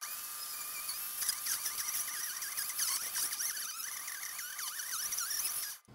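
Countertop blender running on a very thick frozen mix of ice and frozen strawberries, the motor labouring to blend through it, its whine wavering up and down. It cuts off near the end.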